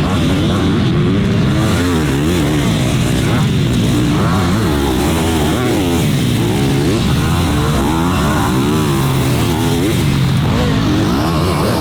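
Motocross dirt bike engines on a supercross track, pitch rising and falling over and over as the riders open and close the throttle and shift through the gears.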